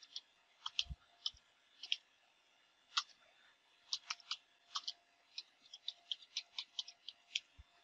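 Computer keyboard keys clicking in irregular typing: a few scattered keystrokes at first, then a quicker run of keystrokes from about four seconds in.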